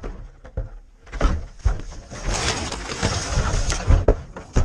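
RC crawler truck tumbling down a rock face, heard from its own onboard camera: a run of knocks, scrapes and rattling impacts. The clatter is densest in the middle, with two sharp hits near the end.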